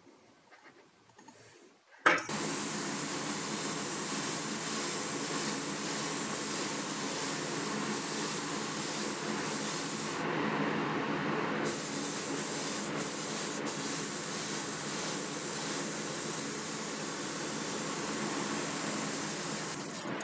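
Gravity-feed spray gun spraying ceramic coating: a loud, steady hiss of air and atomised coating that starts suddenly about two seconds in. The hiss eases off briefly about halfway through, then resumes.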